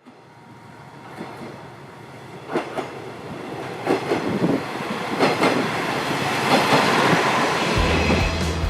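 A rushing noise that builds steadily louder, with irregular sharp clacks. Music with a low bass line comes in near the end.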